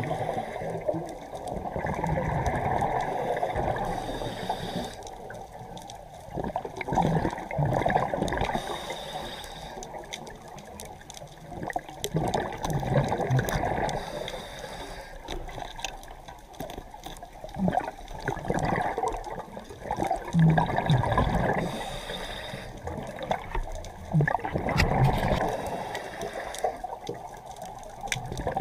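Scuba diver's regulator breathing underwater: rushes of bubbling exhaled air that come and go every few seconds with each breath.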